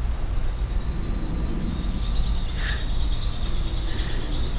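Crickets and other insects trilling without a break at a high pitch, over a low steady rumble, with a short chirp about two and a half seconds in and a fainter one near the end.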